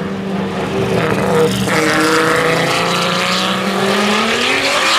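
Two drift cars' engines, an E46 BMW's twin-turbo V8 and an E92 M3's 2JZ straight-six, running hard at high revs together through a tandem slide. The sound grows louder a second or so in, and the pitch rises near the end as the cars accelerate out of the corner.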